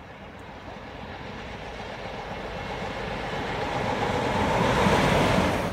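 Class 47 diesel locomotive 47853, its Sulzer V12 engine getting steadily louder as it approaches along the track. It is loudest about five seconds in, then cuts off suddenly.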